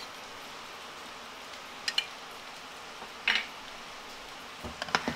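Steady sizzle of a thickened sauce cooking in a wok, with a metal spoon clinking against the pan about two seconds in, again just after three seconds, and several quick knocks near the end as the sauce is stirred.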